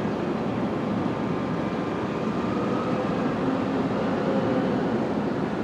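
Steady background rumble with a faint hum, unbroken throughout.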